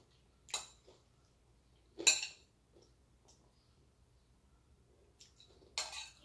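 A metal spoon striking and scraping against a plate three times: once near the start, once about two seconds in (the loudest), and a slightly longer scrape near the end.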